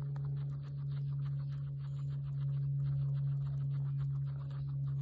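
Guinea pig chewing grass close to the microphone: rapid, soft crunching strokes several times a second. Under it runs a steady low hum, louder than the chewing.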